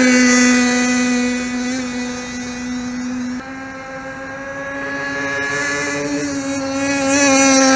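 HPI Savage XL Octane RC monster truck's small gasoline two-stroke engine running at high, nearly steady revs as the truck cruises. The whine fades a little after a second or two and grows louder again near the end.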